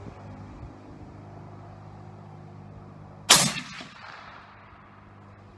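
A single shot from a suppressed .300 Winchester Magnum bolt-action rifle (Ruger American Go Wild with a Yankee Hill suppressor), about three seconds in, with a short echo trailing after it. A faint steady hum runs underneath.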